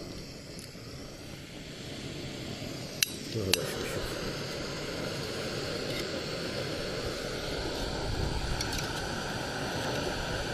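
Two sharp clicks, then a canister gas stove burner lights and runs with a steady rushing hiss, along with light clinks of the metal cook pots being handled.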